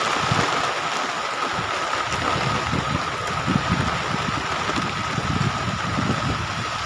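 Wind gusting against the microphone over a steady hiss, with a thin high tone held throughout.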